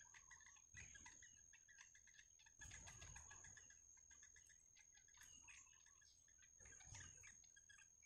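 Faint, rapid chirping of yellow bittern chicks begging in the nest, over a steady high-pitched tone.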